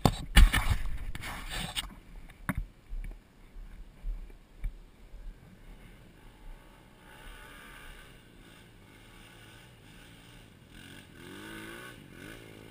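Knocks and rustling on a helmet camera's microphone for about the first two seconds, then a faint mini dirt bike engine revving up and down in the distance near the end.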